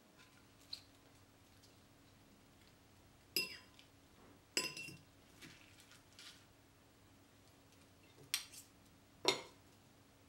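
Metal serving spoon and fork clinking against a ceramic plate and bowl while salad is dished out: about five sharp clinks, each with a short ring, a few seconds apart.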